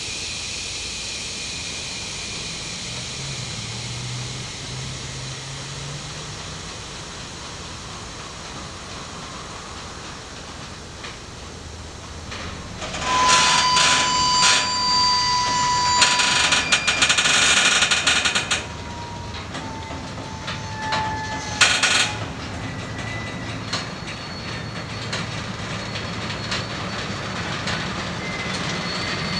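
Freight train of covered hopper cars at a standstill, then starting to move: a steady hiss, then about 13 seconds in a loud stretch of clanking and squealing from the cars' couplers and wheels that lasts about five seconds, a shorter burst near 22 seconds, and lighter squeals and knocks as the cars begin to roll.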